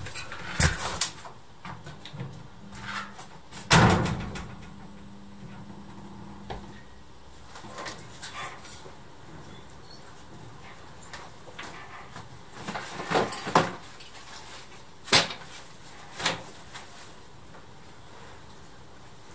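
A door and footsteps, then a few separate sharp clunks and knocks of things being handled. The loudest knock comes about four seconds in, and a short cluster of clicks and knocks comes about two-thirds of the way through.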